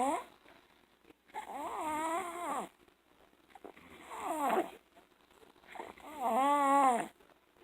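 A toddler snoring loudly: three long, pitched snores about two seconds apart, the middle one falling in pitch. The parent puts the snoring down to enlarged tonsils and sleep apnea.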